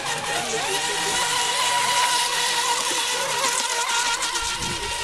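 Radio-controlled mono-hull racing boats running flat out on the water, giving a steady high-pitched motor whine.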